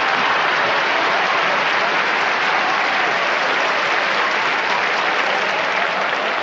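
Studio audience applauding steadily, a dense even clapping with no speech over it.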